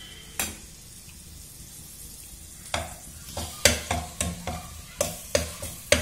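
Ginger-garlic paste sizzling in hot oil in a metal pan, with a single tap near the start. From about halfway through, a metal spatula scrapes and stirs against the pan in quick strokes, about two a second.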